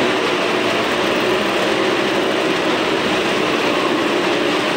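Several motorcycles and a car riding round the wooden wall of a wall-of-death drum together, their engines running hard in one dense, steady drone.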